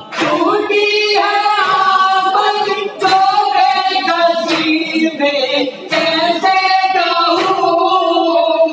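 Men chanting a Shia noha (Urdu lament) in unison into a microphone, with long held sung lines. A sharp slap lands about every second and a half, keeping the beat: matam, rhythmic chest-beating by the mourners.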